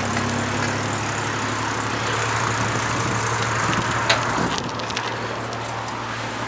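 Rush of wind and tyre noise from a bicycle rolling along pavement, over a steady low hum, with a sharp knock about four seconds in.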